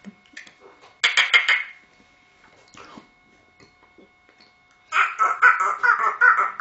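A man beatboxing through cupped hands: a short burst of quick, buzzy pulses about a second in, then a longer run of them from about five seconds in.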